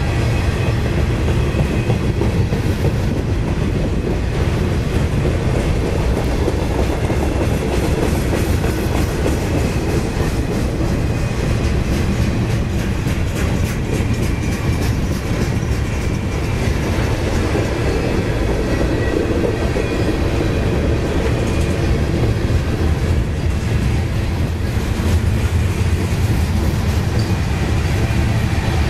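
Mixed freight train of boxcars, covered hoppers and tank cars rolling past: a steady rumble of steel wheels on the rails, with a continuous clickety-clack as the trucks cross rail joints.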